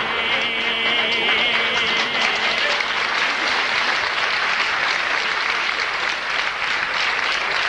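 Live theatre audience applauding, a dense steady clatter of many hands. A wavering high sustained tone carries on from the song for about the first two seconds and fades out under it.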